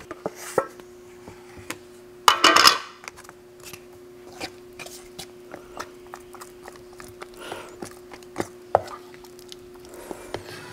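Wooden stir stick scraping and knocking inside a metal can of body filler as it is stirred, with many small clicks. About two and a half seconds in there is a louder short clatter as the metal lid goes down on the bench. A steady faint hum runs underneath.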